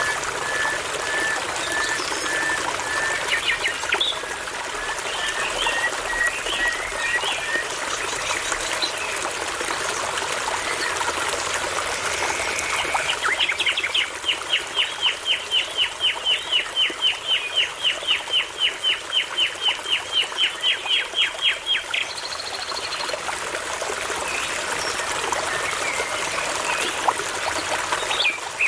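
Babbling brook running steadily with songbirds singing over it. First comes a string of short whistled notes, then, from about halfway, a fast, even series of about four downward-sweeping notes a second that lasts around eight seconds.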